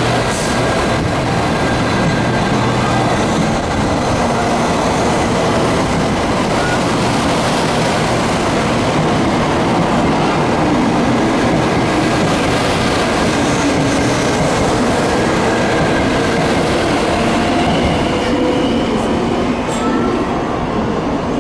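Doctor Yellow, the 923 series shinkansen inspection train, pulling out and running past close by. A steady rumble of the passing cars on the rails with a steady whine over it.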